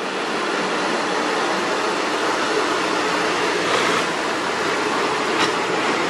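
UD Quester GWE 370 tractor truck pulling a low-bed trailer loaded with two bulldozers, under heavy load on a steep climb: a steady rushing of diesel engine and tyres on the wet road as it goes past, with a short click near the end.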